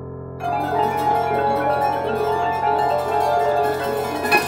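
Prepared Disklavier grand piano, its keys driven by a computer, playing a dense, rapid flurry of many notes that starts about half a second in over low strings still ringing. A single sharp strike near the end is the loudest moment.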